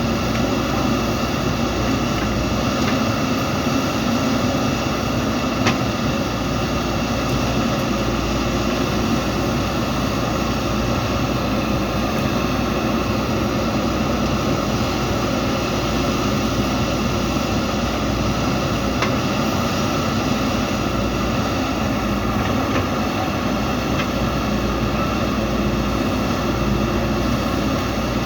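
JCB 3DX backhoe loader's diesel engine running steadily under work, with a couple of faint knocks.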